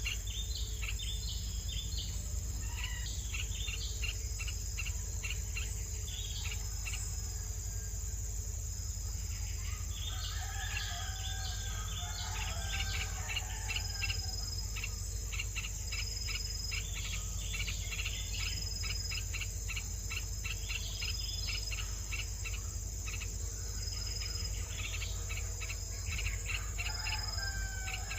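A steady high insect drone with rapid, repeated bird chirps throughout, and a few lower, warbling bird calls about ten to fourteen seconds in and again near the end.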